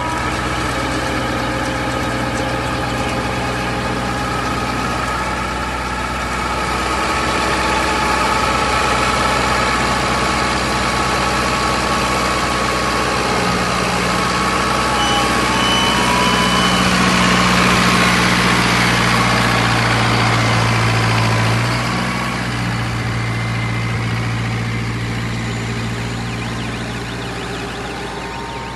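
Straw and husk baling press machinery running: a continuous engine-like hum over a noisy mechanical din. It grows louder from about seven seconds in and eases off suddenly a little past twenty seconds.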